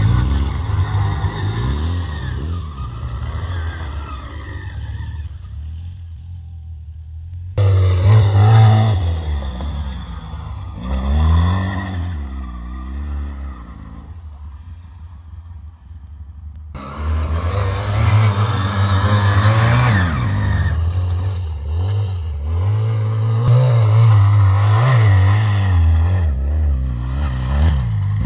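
ATV engine revving up and down while riding, its note rising and falling again and again. The sound jumps abruptly about a quarter of the way in and again a little past halfway.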